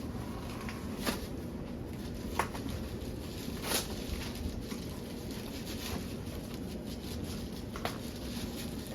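Packaging being cut open and handled: four scattered crinkles and taps over a steady low background noise.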